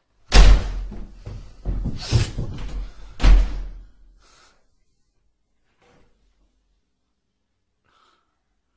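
Three loud slamming bangs, the first right at the start and the last about three seconds in, with rumbling noise between them, dying away soon after.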